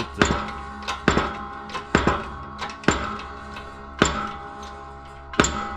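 Metallic clanks about once a second, six in all, each leaving a short metallic ring, as the hydraulic jack of a shop press is pumped to press a heated water pump housing down onto its shaft and bearing.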